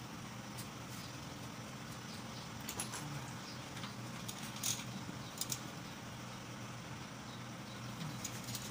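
Scattered light metal clicks and taps as a muffler is fitted by hand onto a Honda GX110 engine's exhaust port, over a steady low hum; near the end a few quick clicks as a ratchet wrench starts on its bolt.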